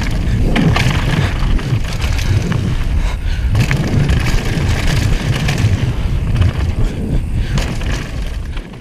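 Downhill mountain bike descending a loose gravel trail, recorded by a handlebar-mounted GoPro: steady wind rumble on the microphone with tyres crunching over stones and the bike clattering and knocking over bumps. The sound fades out near the end.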